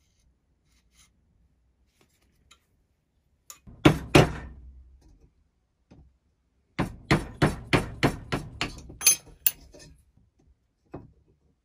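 Soft-faced mallet knocking on a Record No 50 plough plane's iron body and steel rods to drive the rods free: two or three hard blows about four seconds in, then a run of about nine quicker blows, roughly three a second.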